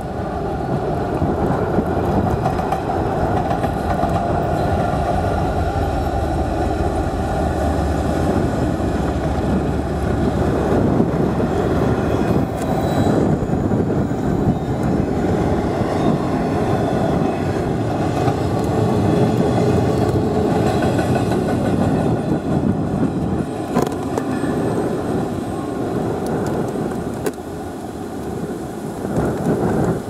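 Norfolk Southern intermodal freight train passing close by, led by two diesel-electric locomotives, an EMD SD70ACe and a GE ES44DC, then a string of container-loaded well cars rolling past with a steady, loud wheel-on-rail rumble. The rumble eases slightly near the end.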